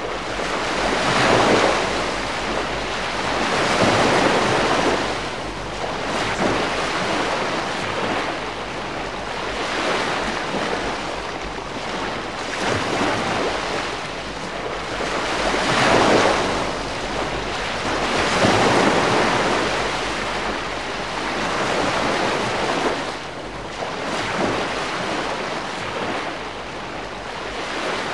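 Calm sea wash: gentle waves surging and falling back every few seconds.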